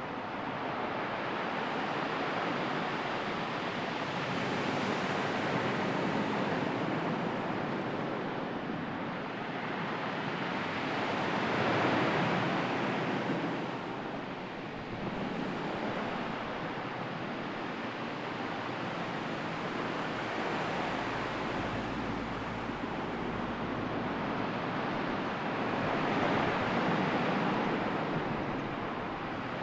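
Sea surf: a steady wash of waves that swells louder about twelve seconds in and again near the end.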